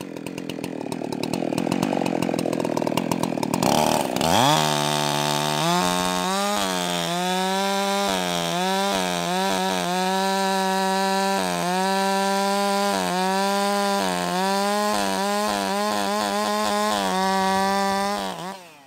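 Ported, muffler-modded Husqvarna 372XP two-stroke chainsaw with a 24-inch bar cutting through a log, chips flying. The engine labours at lower revs for the first few seconds, climbs in pitch about four seconds in, then holds a high, steady full-throttle note with brief dips as the chain loads in the wood, and falls off just before the end.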